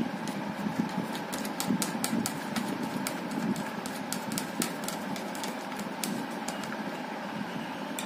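Small irregular plastic clicks and ticks as fingers turn and work loose the side pivot screw of a Vega off-road helmet's peak, over a steady background hum.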